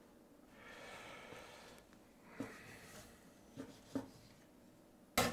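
Chinese cleaver scoring raw chicken wings on a wooden cutting board: a soft scrape, then a few light taps of the blade on the board, with a louder knock right at the end.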